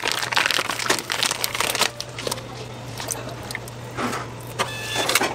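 Plastic food bag crinkling and rustling in gloved hands as white slabs are pulled out of it into a steel tray. A low steady hum runs underneath.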